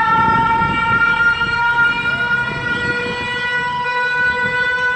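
Emergency alarm siren sounding through a horn loudspeaker as the signal for an earthquake drill: a steady chord of tones that rises slowly in pitch, with a faster warble over it.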